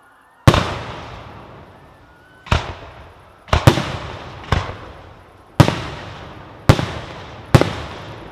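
Aerial firework shells bursting overhead: eight loud bangs at irregular intervals, two of them close together about halfway through, each followed by a long rumbling echo that fades.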